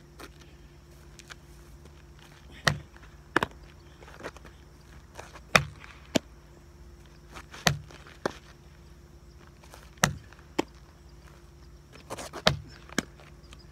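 A baseball smacking the asphalt and the leather glove in a repeating game of solo catch: sharp knocks in pairs about half a second apart, a pair every two to two and a half seconds.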